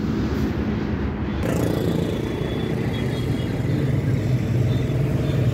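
The Simpson diesel engine of a Captain 250 DI mini tractor idling steadily, a low even hum.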